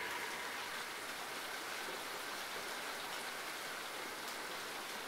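Steady light rain, an even hiss with a few faint drop ticks late on.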